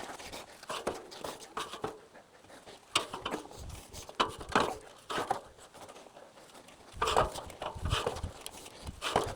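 A person panting while climbing a ladder, with scattered knocks and steps on the rungs.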